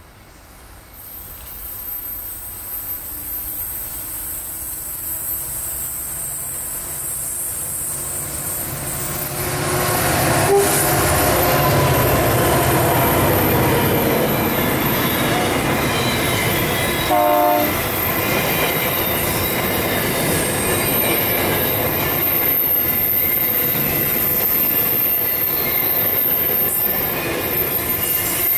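Freight train led by two SCT-class diesel-electric locomotives approaching and passing. Its sound grows over the first ten seconds, then the louvre vans and container wagons roll past steadily, with a thin high wheel squeal over the running noise.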